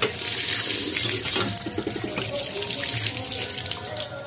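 Running water pouring and splashing onto a metal plate of raw prawns on a concrete floor as they are rinsed by hand, easing slightly towards the end.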